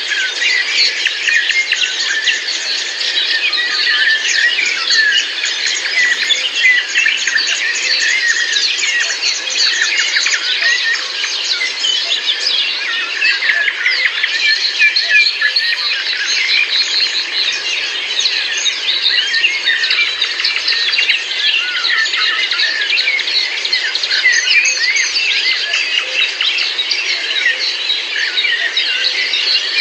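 A dense chorus of many small birds chirping and twittering at once, with overlapping short, quick calls that never pause.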